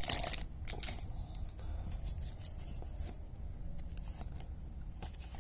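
Baseball trading cards being slid and flipped through by hand, with faint, scattered clicks and rustles of card stock. A brief cluster of sharper crinkles and clicks comes in the first half-second.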